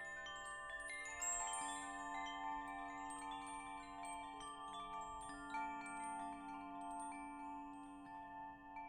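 Wind chimes ringing: many overlapping struck tones at irregular moments, each left to ring on, with a few deeper tones sounding for several seconds.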